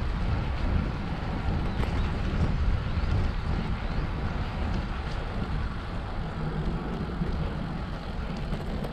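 Wind noise on the microphone of a camera riding on a moving bicycle: a steady low rumble with a hiss of air and road noise over it.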